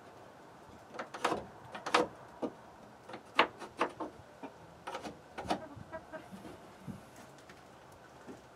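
Knocks and taps of a wooden 2x4 being handled and fitted up against the ceiling framing, about a dozen sharp strikes in the first six seconds, then quieter.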